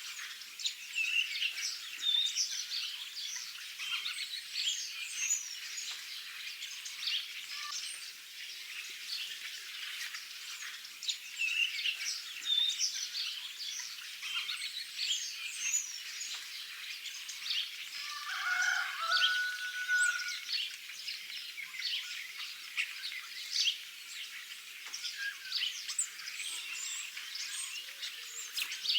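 Many small songbirds chirping and twittering at once in a dense outdoor chorus, with one lower, short call about eighteen seconds in.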